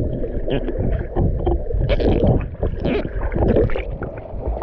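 Mountain river water rushing and splashing, with irregular splashes over a low rumble.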